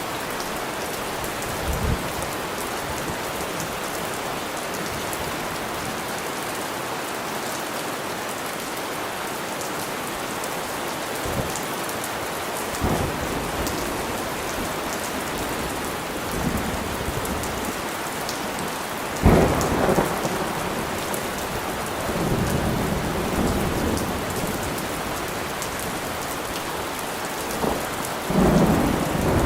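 Steady heavy rain falling, with thunder breaking in several times: distant low rumbles, a sharp close crack about two-thirds of the way through, and rolling rumbles after it and near the end.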